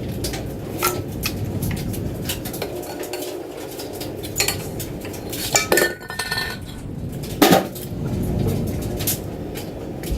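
Hand tools and metal engine parts from a Mopar 440 big-block V8 clinking and clanking at irregular intervals, with a few louder ringing knocks, as the engine is being torn down.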